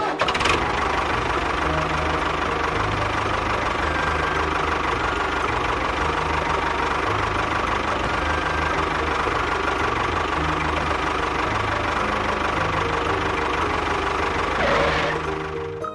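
A machine engine running steadily, swelling briefly near the end before cutting off.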